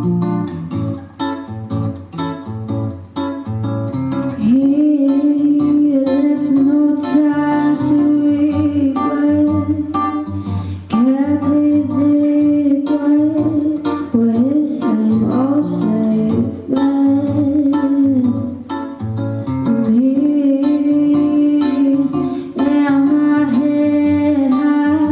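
A woman singing long held notes, sliding up into each one, over a strummed acoustic guitar.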